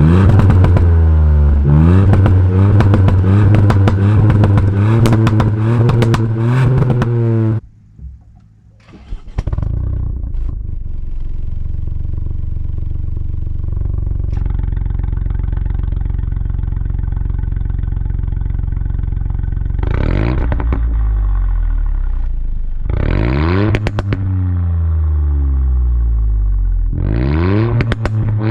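MK8 Ford Fiesta ST's 1.5-litre three-cylinder turbo engine through a valved Scorpion cat-back exhaust with GPF delete. It is revved hard and repeatedly, with sharp pops among the revs, and cuts off sharply after about seven seconds. After a short lull it idles steadily, with three quick throttle blips in the last eight seconds.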